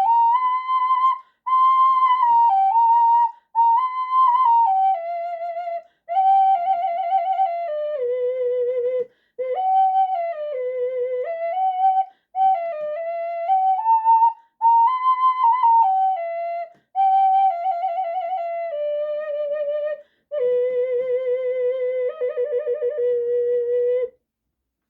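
Unfired clay ocarina horn playing a slow melody of held, stepped notes, in phrases broken by short breath gaps. It ends on a long low note with a wavering vibrato.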